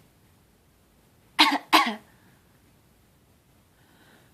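Two quick coughs in a row about a second and a half in, a put-on fake cough rather than a real one.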